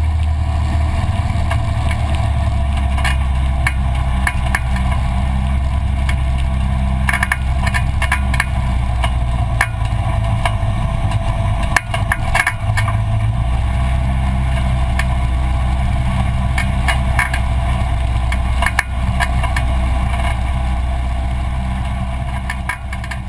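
Rallycross car's engine running, heard from inside the caged cabin, with rattles and knocks from the bodyshell. The engine note drops and shifts between about ten and thirteen seconds in, and the sound fades out at the end.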